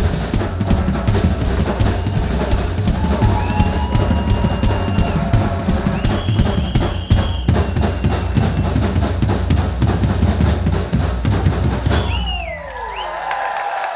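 Drum kit played fast and hard, with heavy bass drum, snare and rolls, under a few held high tones. The drumming stops about two seconds before the end, followed by a falling pitched sound.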